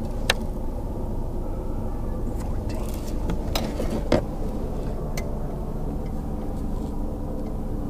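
A steady low rumble, with a few sharp clicks and knocks as a crappie and a measuring stick are handled against a plastic kayak hull.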